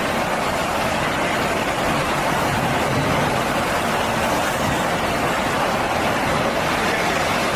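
Excavator engine running steadily, with an even, unbroken mechanical noise.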